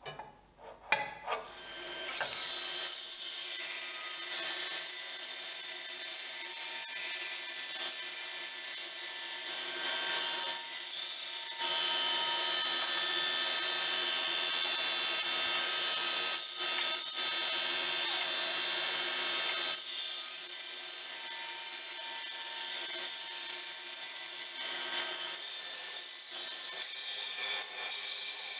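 A few light clicks, then a band saw is switched on about two seconds in and runs steadily, its motor and blade making a hum with several steady tones. The sound gets louder for a stretch in the middle and again near the end, when a board is pushed up to the blade.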